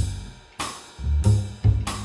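Jazz rhythm section, drum kit and bass, looping a two-bar groove: cymbal and drum hits over short, strong low bass notes.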